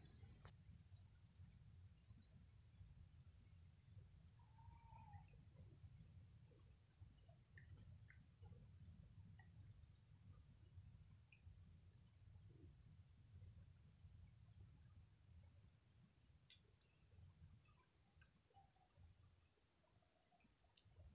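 A steady, high-pitched chorus of insects droning without a break. It drops slightly in level about five seconds in and again about fifteen seconds in.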